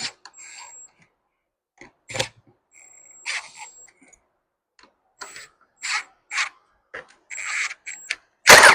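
Clicks, taps and brief scraping of plastic trim and steering-wheel parts being handled and fitted, some with a thin high squeak. Near the end, a loud, sudden clatter.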